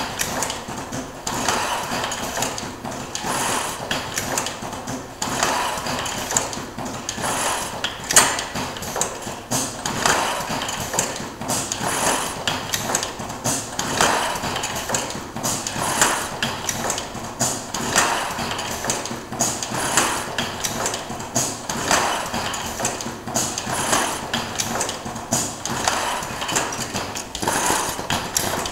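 Automated ladder-making machine running, a steady mechanical clatter with sharp clicks and knocks that swells in a repeating cycle about every two seconds.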